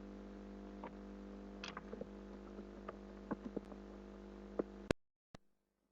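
Steady electrical hum picked up by a computer recording setup, with scattered faint clicks. About five seconds in it cuts to dead silence, broken by a single click.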